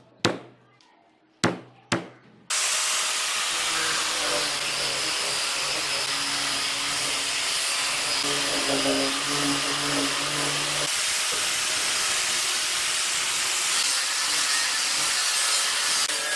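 Three sharp knocks in the first two seconds, then an electric woodworking power tool starts abruptly and runs steadily on wood, a loud even hiss with a faint low hum.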